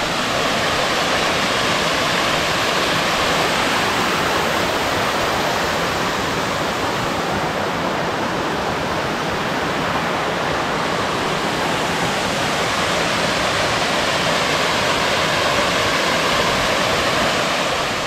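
Small waterfall cascading down a rock face into a pool: a steady rush of falling water.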